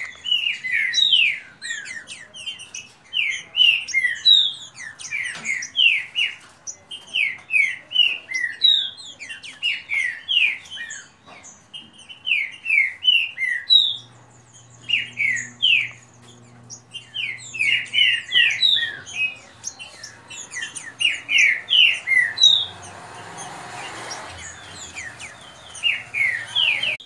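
Green-winged saltators (trinca-ferro) singing their fast song in a song contest: loud, rapid phrases of short slurred whistles, one after another with brief pauses between.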